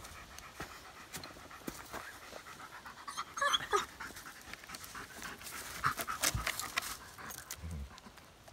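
German Shepherd panting in quick rhythmic breaths, with a few louder sharp scuffs and clicks around the middle.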